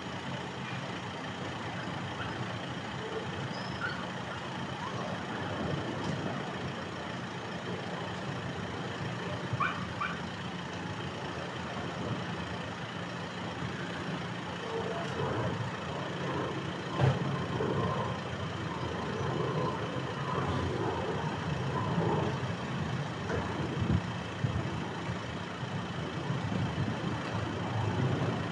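A vehicle engine idling with a steady low hum under outdoor street noise, with a few faint short sounds in the second half.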